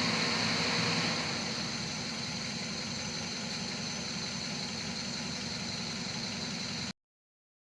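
Nissan GA15 1.5-litre four-cylinder engine idling, with a steady high whine above it, then cutting off abruptly near the end. The engine has a secondary misfire from a leaking number 4 spark plug wire.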